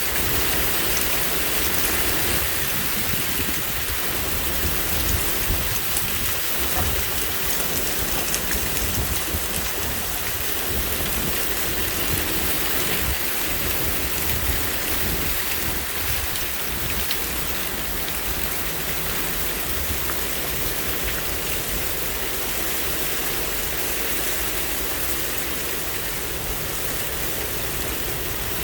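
Steady rain falling and pattering, with gusty wind making an uneven low rumble underneath.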